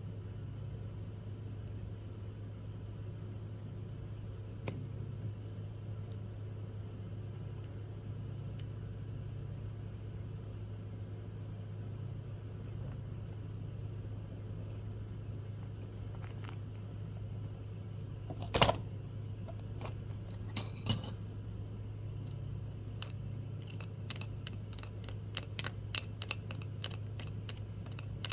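Small metal tool and parts handling during hand assembly: one loud knock about two-thirds of the way in, a few metallic clinks, then a quick run of light metallic clicks near the end, over a steady low hum.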